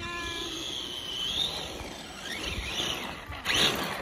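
RC monster truck's motor whining at a high pitch, rising and falling as the throttle changes, with a brief loud rush about three and a half seconds in.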